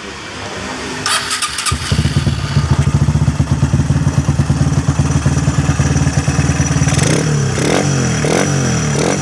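Honda GL-family motorcycle's single-cylinder four-stroke engine running at a steady idle from about two seconds in, then revved in a series of short throttle blips near the end. It is the test run after a broken internal part was replaced to cure a rough, rattling engine noise.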